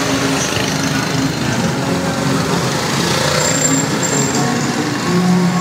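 Busy city street traffic: motorbike and vehicle engines running, a steady, loud din.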